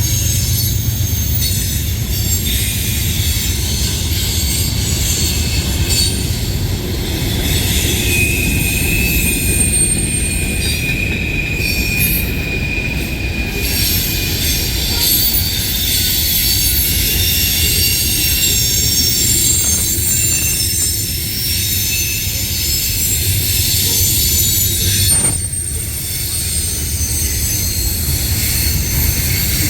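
A train's cars rolling past on the rails with a steady low rumble, while the wheels squeal in high, thin tones that come and go.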